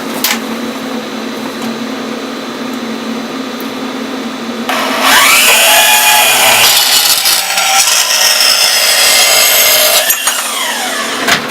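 Bandsaw blade cutting through 1/8-inch aluminium flat stock. The saw runs steadily at first. About five seconds in, the blade bites into the metal and sets up a loud, high hiss with wavering whining tones for about five seconds. It stops abruptly as the cut finishes.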